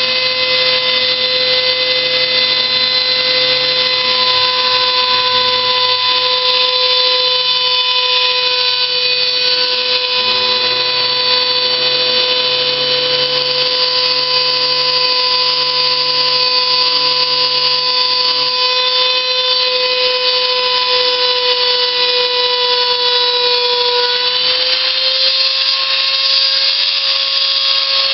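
Motor of a home-built CNC machine running, a steady high whine with a dip in pitch about 24 seconds in that recovers a second later.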